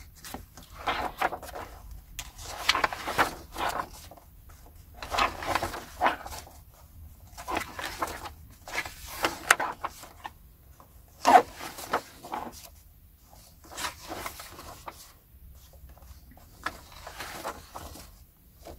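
Paper handling: a series of short rustling swishes as book pages and dust jackets are turned and moved, with one sharper tap about eleven seconds in.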